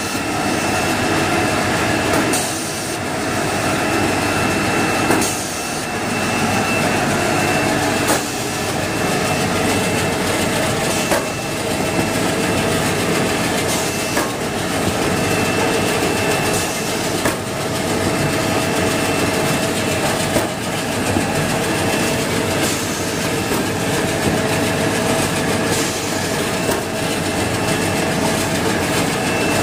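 Automatic band saw jumbo-roll toilet paper cutting machine running: a steady mechanical noise with a high whine held through it, and a short knock about every three seconds as it cycles.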